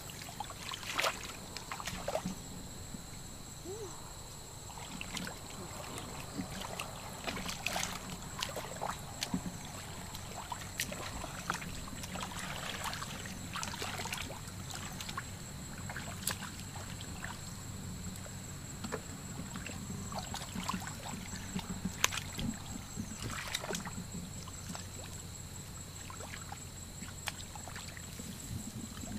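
Shallow muddy water sloshing and splashing as people wade and grope through it by hand, with irregular sharp splashes throughout.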